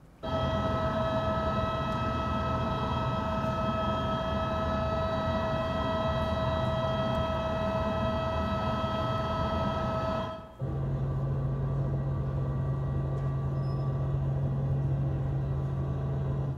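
Soundtrack of short promotional video clips played over the lecture hall's speakers: a steady, machine-like whine with several fixed tones over rumble for about ten seconds, then after a brief break a steady low hum with rumble that cuts off near the end.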